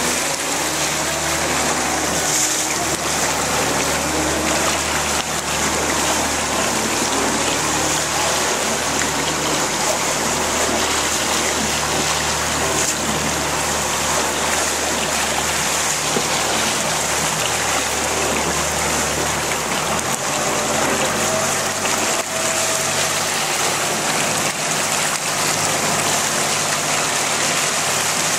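Motorboat wake churning and rushing behind the stern, a continuous splashing water noise, with the boat's engine humming low and steady underneath; the low hum thins out about twenty seconds in.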